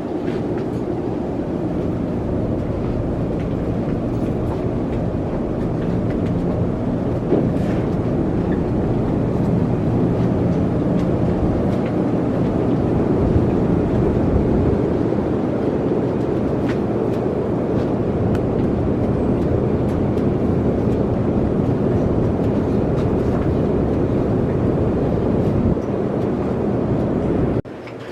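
Steady low mechanical rumble, like a running vehicle or machine, that cuts off abruptly near the end.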